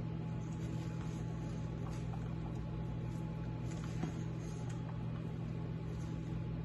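Wooden spoon stirring potato salad in a stainless steel bowl: faint soft scraping and scattered light clicks over a steady low hum.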